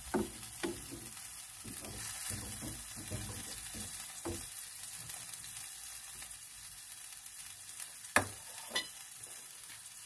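Tomato and spice sauce sizzling in a glazed clay tajine pan on a gas burner, stirred with a wooden spatula that clicks lightly against the pot over the first four seconds or so. Two sharper knocks come about eight and nine seconds in.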